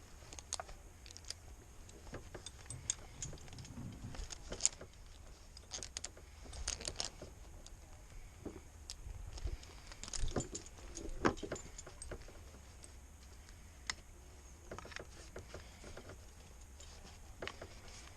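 Metal gear clinking and rattling as it is handled, in irregular short clicks and jingles that are busiest in the middle.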